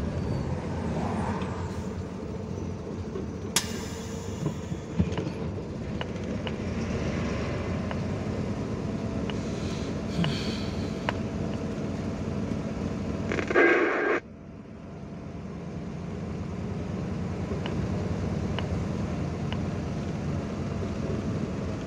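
Truck engine and road rumble heard from inside the cab while driving slowly over broken pavement, with scattered sharp rattles and knocks. About thirteen and a half seconds in, a short loud burst cuts off abruptly. The engine sound then drops away and builds back up.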